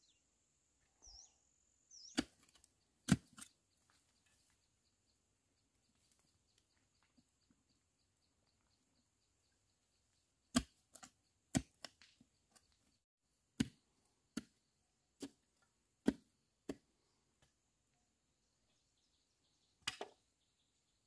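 Sharp, irregular blows of a tool striking bamboo, about a dozen in all: two near the start, a quick run of them in the middle, and a last one near the end.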